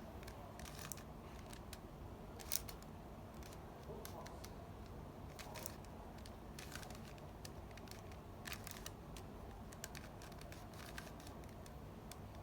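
Scattered light plastic clicks and handling noise from a Rubik's cube being handled, with one sharper, louder click about two and a half seconds in.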